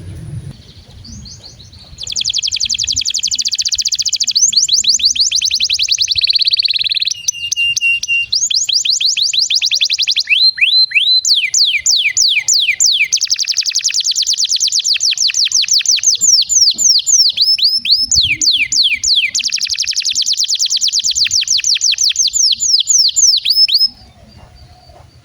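Domestic canary singing a long, unbroken song of rapid trills, fast runs of repeated notes broken by slower downward-swooping notes. The song starts about two seconds in and stops shortly before the end.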